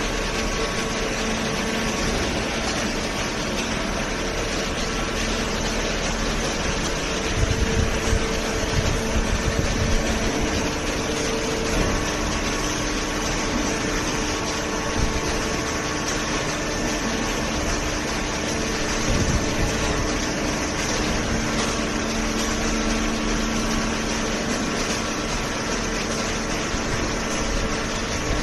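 Hydraulic cardboard baler running: the steady hum and whine of its motor-driven hydraulic pump, with a run of low knocks about a third of the way in.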